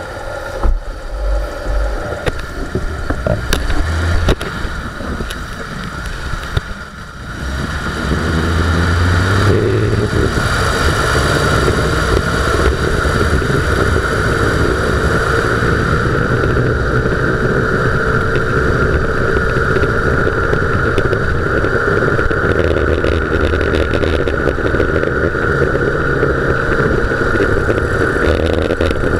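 Front suspension of a Dodge Durango on the move, heard from right beside the wheel: tyre and road noise with the growl of a worn front hub bearing. It is uneven with a few knocks at first, then about eight seconds in swells to a steady, loud growl with a constant tone.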